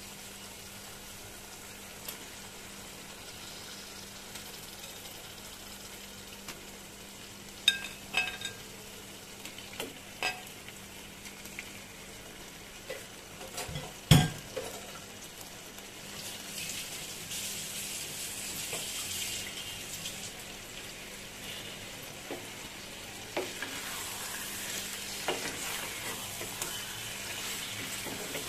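Raw mutton pieces sizzling in a pan of fried spice paste, with a few clicks as pieces are dropped in and one sharp knock about halfway through. After that the sizzle grows louder while a metal spatula stirs and scrapes the meat through the masala, with scattered clinks near the end.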